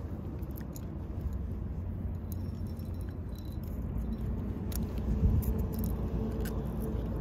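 A few light metallic clicks and rattles from a metal fish lip grip holding a yellowfin seabream, over a steady low rumble.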